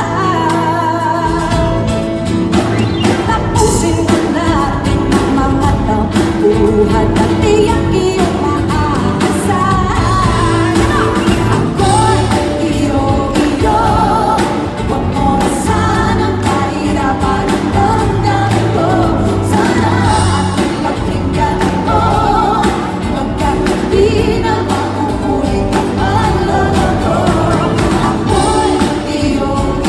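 A woman singing a pop song into a microphone with a live band of drums, electric guitar and keyboards, played through a concert PA.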